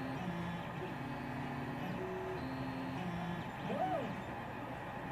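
3D printer stepper motors whining as the print head moves, in steady tones that jump to a new pitch every third to half second, with one quick rise and fall in pitch near the end, over a steady background hum.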